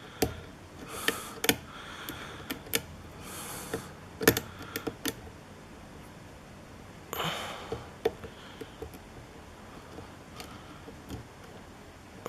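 A hook pick and tension wrench working in a tight pin-tumbler lock keyway: irregular small metallic clicks and ticks, with a few short scraping sounds in between.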